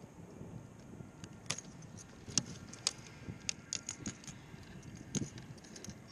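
Irregular metallic clicks and clinks of fishing pliers working a topwater lure's hooks free from a speckled trout's mouth, over a low steady rumble.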